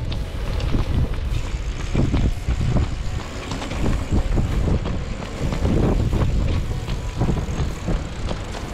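Wind buffeting the microphone of a camera mounted on a moving bicycle, with the rider's nylon rain poncho rustling and flapping in the airflow. The poncho's back hooks hold its hem down, so the flapping is much reduced.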